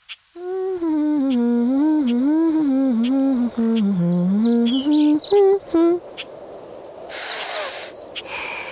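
A voice humming a wandering, rising-and-falling tune for about five and a half seconds, with faint ticks behind it. Short high chirps and a brief burst of hiss follow near the end.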